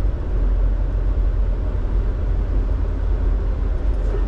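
Semi-truck cruising on the highway: a steady low rumble of engine and road noise heard inside the cab.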